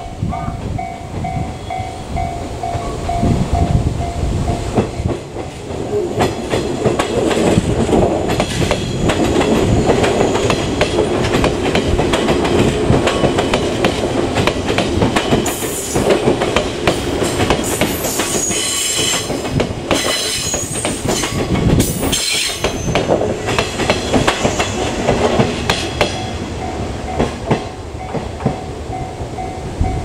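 A 485-series electric train rolling slowly past over the points on curved track. Its wheels clack over the rail joints and screech on the curve through the middle of the pass. A level-crossing bell dings steadily at the start and again near the end.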